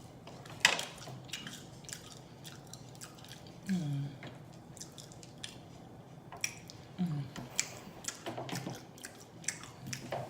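Close-miked chewing and lip smacking from a person eating fried chicken and fries, with many sharp wet clicks scattered throughout, the loudest about half a second in.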